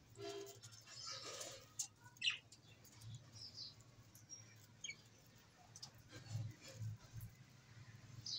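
Small birds chirping faintly, scattered short high calls spread through the moment, over a low steady hum.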